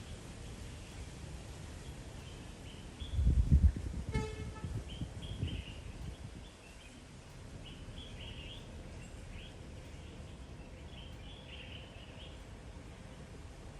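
Wild birds chirping in short repeated bursts over a steady outdoor background. About three seconds in, a low rumble swells for two or three seconds, and a brief horn-like toot sounds about four seconds in.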